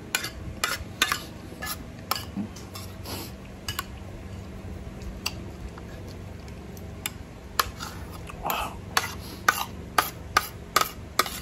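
Metal spoon and fork clinking and scraping against a ceramic plate while eating, in scattered sharp clicks that come more often near the end.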